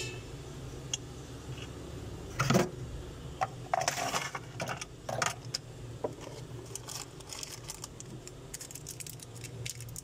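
Light clicks and clatter of small hard objects being handled on a work table, the loudest about two and a half seconds in and a cluster of them a second later, with lighter ticks near the end, over a steady low hum.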